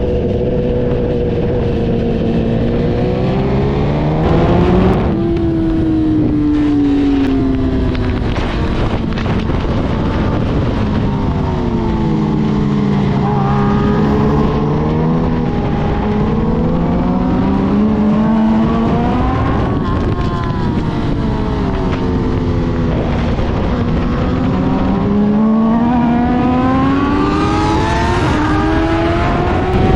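Yamaha YZF-R6 inline-four sport bike engine with an Akrapovič exhaust, at track speed: its pitch climbs under acceleration and falls away on the overrun, several times over, with wind rushing underneath.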